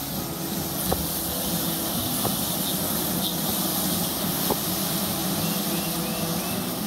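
Bee smoker puffing smoke over the open frames of a honey bee hive: a steady hiss with a few soft clicks, over the hum of the bees.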